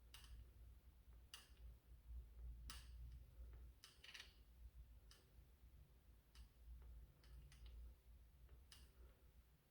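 Faint, scattered light clicks, roughly one every second or so, over a low hum: a screwdriver working small screws out of and into a plastic toy blaster.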